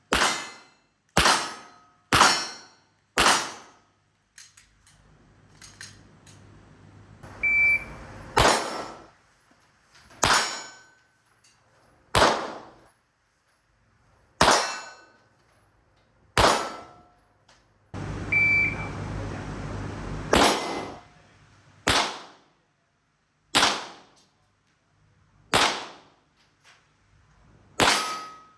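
Gunshots fired one at a time, about fourteen of them, one every one to two seconds, each a sharp crack that dies away quickly.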